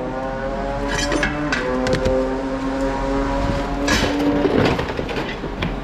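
Several sharp clanks of metal scrap being handled, over a steady, even hum that drops away about four seconds in.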